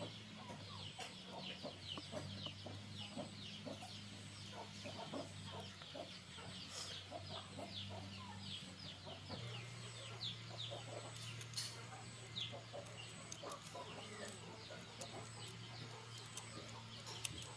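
Chicks peeping in quick, short falling chirps, over a steady low hum that shifts slightly about nine seconds in.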